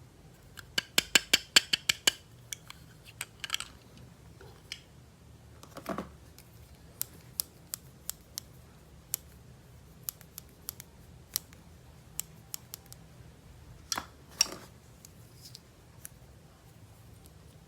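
Sharp clicks and snips from handling plastic toys and packaging: a quick run of about eight near the start, then scattered single clicks, a softer knock about six seconds in and two louder clicks near the end.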